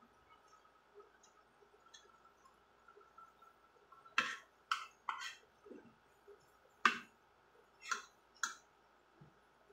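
Metal fork and spoon clinking and scraping against a ceramic plate while fried fish is picked apart: about six sharp clicks, bunched in the second half.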